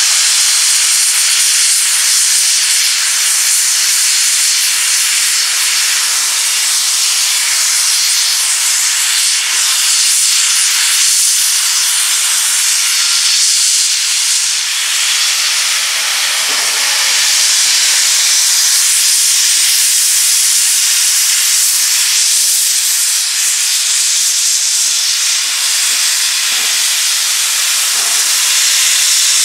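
Class 01.10 steam locomotive 01 1075 hissing loudly and steadily as steam blows out from its open cylinder drain cocks while it creeps forward.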